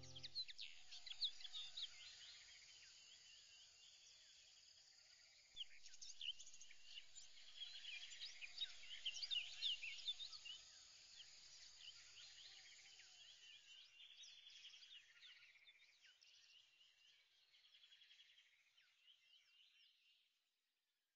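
Faint birdsong: many small birds chirping and trilling in quick high notes, busiest in the middle and fading out near the end.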